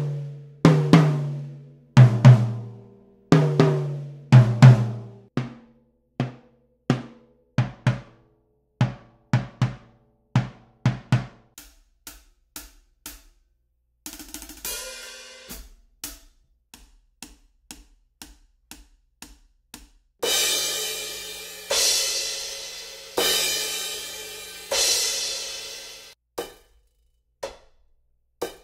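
Drum kit played in short demonstration passages: tom hits ringing out with a low pitched tone, then sparser strokes, then hi-hat strokes, then crash cymbals washing on for a few seconds each. Near the end come a few short, quickly dying cymbal hits with Drumtee mutes fitted.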